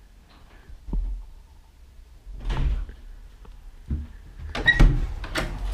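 A door being opened and closed: a few separate thumps and clicks of the door and its latch, the sharpest clicks coming near the end.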